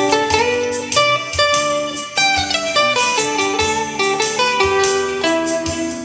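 Acoustic guitar played solo: a melody of single plucked notes over lower bass notes, each note starting cleanly and ringing on.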